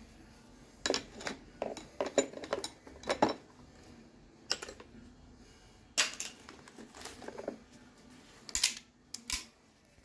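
Metal hand tools clinking and knocking together as they are rummaged through in an open tool bag and a pair of locking pliers is lifted out. The clatter comes in short bunches of sharp clicks: about a second in, around the middle, and near the end.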